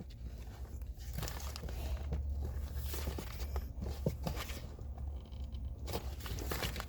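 Handling noise of a hand pressing down on a car's plastic glove box, with rubbing, crinkling and a few light clicks over a low steady hum.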